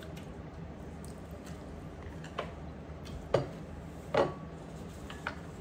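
A few light clinks of eating utensils against dishes during a meal, about four in all, spaced roughly a second apart. One clink rings briefly. A low steady hum sits under them.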